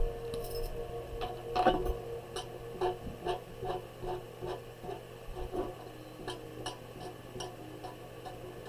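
A drawing tool tapping and scratching out short strokes on paper: a string of light, irregular ticks, about two or three a second, over a faint steady hum.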